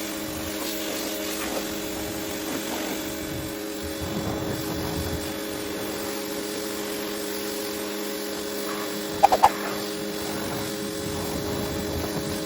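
Parkside PHD 110 G2 electric pressure washer running steadily, its motor and pump making an even hum. About nine seconds in, three short, sharp sounds stand out over it.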